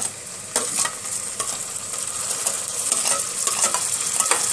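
Onions, green chillies and freshly added chopped tomatoes sizzling in hot oil in a pressure cooker, the sizzle growing louder. A spoon scrapes and knocks against the pot a few times as the mix is stirred.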